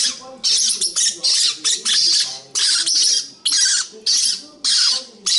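A pet parrot squawking over and over: a run of harsh screeches, about two a second.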